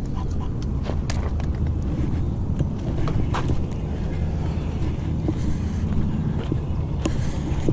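Steady low wind rumble on the microphone, with scattered small clicks and knocks.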